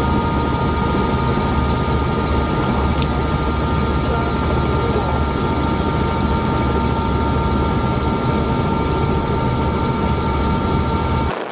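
Helicopter turbine and rotor noise heard from on board: a loud, steady drone with a steady high whine over it. It cuts off abruptly just before the end.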